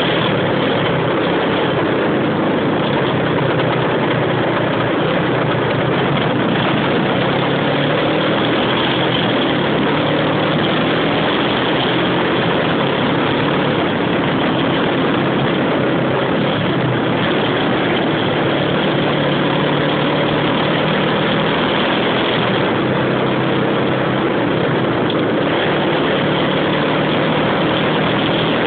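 Car engine and tyre noise heard from inside the cabin while driving, a steady drone with no change in level.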